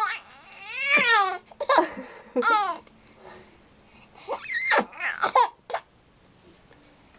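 A four-month-old baby laughing in several high, squealing bursts with short pauses between, dying down near the end.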